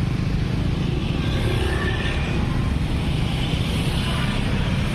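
Road vehicle engines running, a steady low rumble with road noise and no distinct events.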